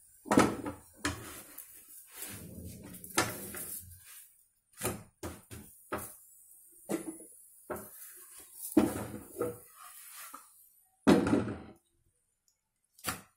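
A series of separate knocks and clatters, about a dozen spread irregularly, of kitchenware being handled and set down.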